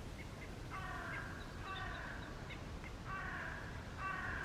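A crow cawing four times, harsh drawn-out calls spaced about a second apart. Faint small-bird chirps come in between.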